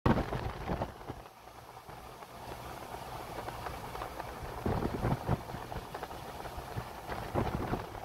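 Wind gusting over the microphone: a low rumble with irregular, noisy blasts, the strongest near the start, about five seconds in and near the end.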